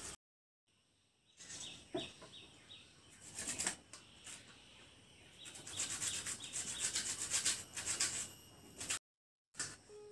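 Bottle gourd and potato being grated by hand on a metal grater: irregular rasping strokes that come faster and denser over a few seconds past the middle, broken by two short silent gaps.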